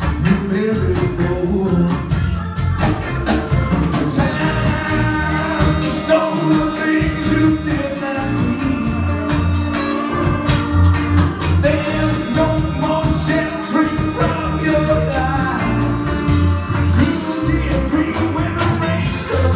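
Live band playing a song with a lead singer, keyboards, guitar and horns over a steady drum beat.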